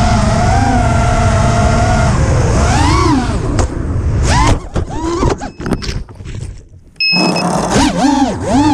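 Brushless motors of an FPV racing quadcopter whining, recorded by a GoPro Session mounted on the quad; the pitch swoops up and down with the throttle. About halfway the whine falls away into a quieter stretch of clicks and knocks, then the motors surge back about seven seconds in.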